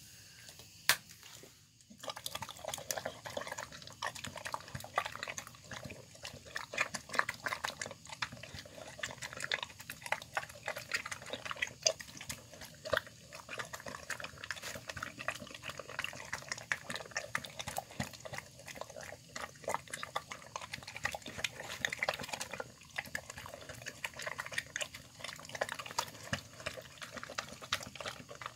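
Dog eating wet, chunky chicken noodle soup from a plastic container: a rapid, irregular run of wet smacking, slurping and chewing that starts about two seconds in, after one sharp click.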